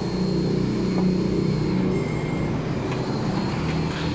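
Cordless power tool running on a bolt with a steady, pitched hum, a little louder for the first couple of seconds.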